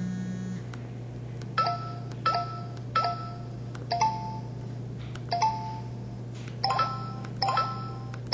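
SPH-E2309 mobile phone sounding its keypad tones as keys are pressed one at a time: about eight short beeps, irregularly spaced about a second apart, each at a different pitch.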